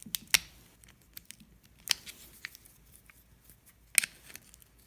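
Scattered small, sharp plastic clicks and ticks as the little retaining clip on a GM PCM wiring connector is worked at by hand; the three loudest come about a third of a second in, at about two seconds and at about four seconds.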